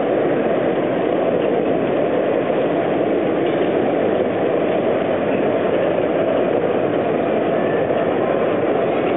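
Steady, even rumbling noise of a model railway exhibition hall, while an OO-gauge model steam locomotive runs along the layout's track.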